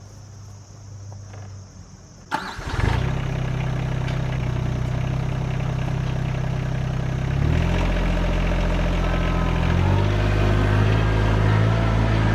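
RK25 sub-compact tractor's engine starting: it cranks briefly and catches about two seconds in, then runs steadily, its pitch shifting up twice later on.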